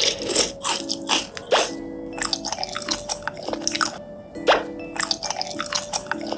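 Sharp crunches of biting and chewing tanghulu, fruit coated in a hard, glassy sugar shell, about one crunch a second, over light background music.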